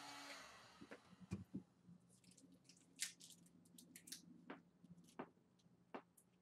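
A heat gun's blower cuts off just after the start. It is followed by a knock, then faint scattered crackles and taps from hands pressing warm Worbla thermoplastic sheet over a foil-covered face mold.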